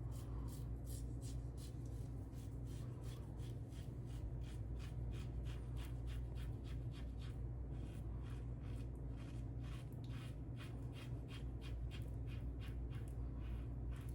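Short scraping strokes of a Tatara Amakuni stainless single-edge safety razor with a Kai Captain Titan blade, cutting stubble through lather, a few strokes a second in runs with brief pauses. A steady low hum lies under them.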